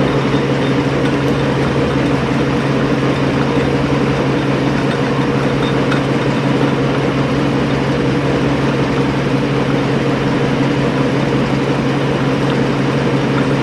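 Craftsman/Atlas 12-inch lathe running unloaded with an empty chuck: a steady hum and whir of the motor and spindle drive. The spindle is being run at speed to warm its Timken bearings for a preload check.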